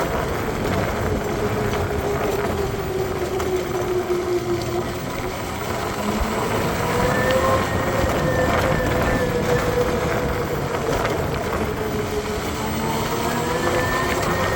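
Ola S1 Pro Gen 2 electric scooter's drivetrain whining over steady road and wind noise, its pitch rising and falling twice with speed. The drive pulley has just been sprayed with chain lube to cure a screech under hard acceleration.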